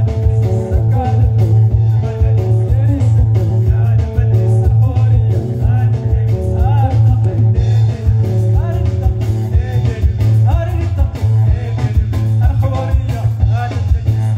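Live band playing amplified through a PA: electric guitars over a heavy bass line and a drum kit, with singing at times.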